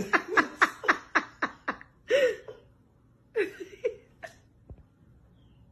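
A person laughing in a quick run of "ha-ha" pulses for about two seconds, then a few more short laughs before it falls quiet.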